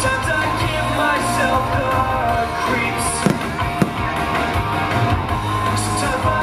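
A fireworks show's music soundtrack playing with fireworks going off over it, including two sharp bangs about half a second apart around the middle.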